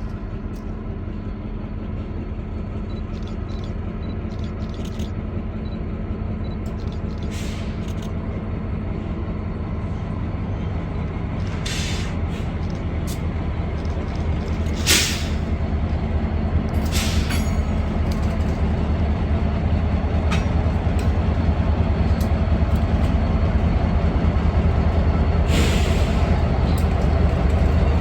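Diesel locomotive engines of a train moving rotary snowplows, a steady low drone growing louder as the train approaches, with a few short hisses along the way.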